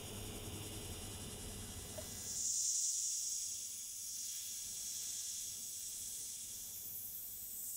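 TIG welding torch hissing during a tack weld on stainless steel. About two seconds in, the low hum drops away and a louder, higher hiss takes over.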